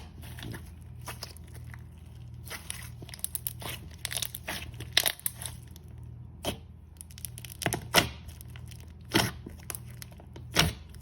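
Thick slime being squished and stretched by hand, making irregular sticky pops and clicks, with a few louder pops in the second half. A steady low hum runs underneath.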